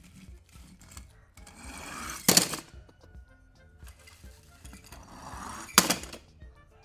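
Die-cast toy cars rolling across a plastic board, twice: each run is a rolling rattle that grows louder for about a second and ends in a sharp clack, the two runs about three and a half seconds apart.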